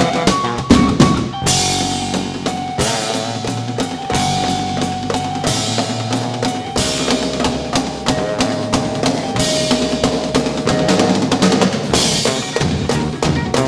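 A live band plays an instrumental passage with no singing. A drum kit beats steadily under held melodic notes, and crash cymbals ring out three times, about every five seconds.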